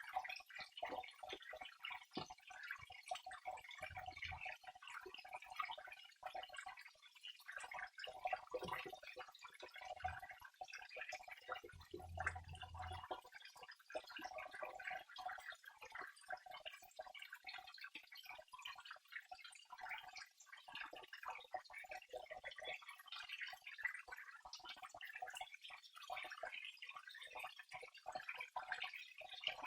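Water trickling and dripping steadily, a dense patter of small splashes with no pause.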